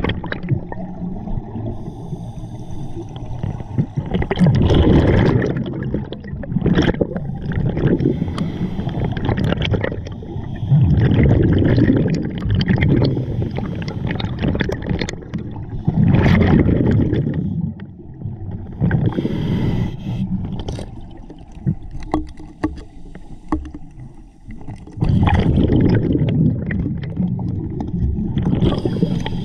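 Scuba diver's regulator breathing heard underwater, with exhaled bubbles gurgling out in surges about every five or six seconds.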